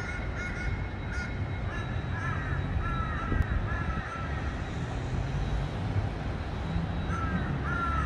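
A crow cawing in a run of short, quick calls through the first half, then starting another run near the end, over a steady low rumble.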